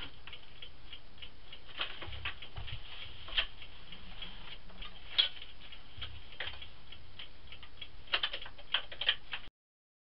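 Irregular light clicks and knocks of wooden boards and demolition debris being handled, with a few louder knocks about three and five seconds in and a quick cluster near the end. The power saw is not running. The sound cuts off abruptly near the end.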